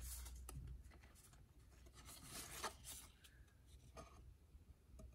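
Faint rubbing and light ticks of 1995 Fleer Metal football cards, glossy metallic card stock, being slid against each other and lined up in the hands, with the loudest scrape a little past halfway.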